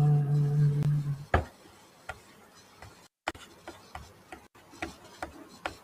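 A man's drawn-out hesitation sound, held at one pitch for about a second, then soft, irregular clicks of a computer mouse, one or two a second, as a document is scrolled on screen.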